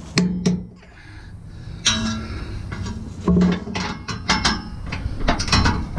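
Socket ratchet clicking in short, uneven runs as it turns a hitch mounting bolt.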